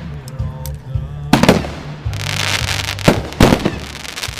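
Hot Rocket 'Rounders' consumer firework firing. Sharp shot reports come about a second and a half in and twice more around three seconds, with a hissing rush between them, over background music.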